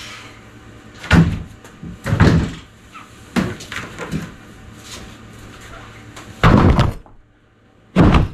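Heavy thuds and knocks from a 200 Ah AGM lead-acid battery being carried by its handle and set down on the floor, the sharpest bang near the end after a short lull.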